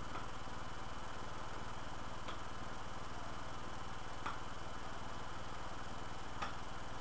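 Steady electrical hum and hiss from a low-quality webcam microphone, with a faint short click about every two seconds.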